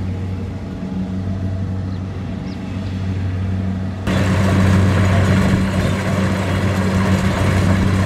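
Kubota DC-70 combine harvester's diesel engine running steadily with a low hum. About halfway through, the sound suddenly becomes louder and noisier, with more hiss over the hum.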